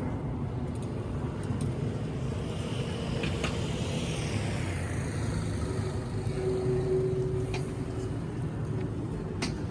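Steady road traffic noise, with a passing vehicle whose sound falls in pitch midway and a few sharp clicks.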